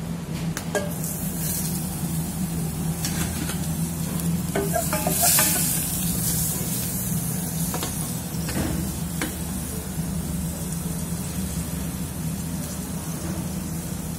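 Butter sizzling as it melts in a hot stainless steel saucepan on a gas burner, with a few clinks and knocks of a utensil against the pan and the loudest sizzle about five seconds in. A steady low hum runs underneath.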